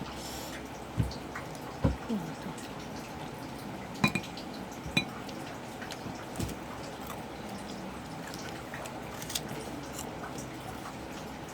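Scattered clinks and taps of utensils against dishes while eating, about six short knocks over the stretch, a couple with a brief bright ring.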